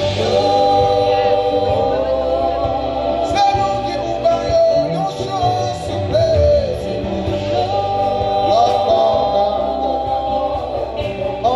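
Live band music with sung vocals: long held notes sliding between pitches over a steady bass line.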